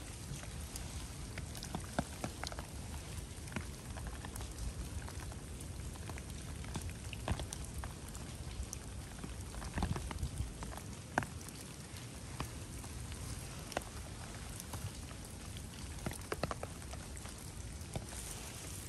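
Steady rain falling, with scattered close drops tapping at irregular intervals.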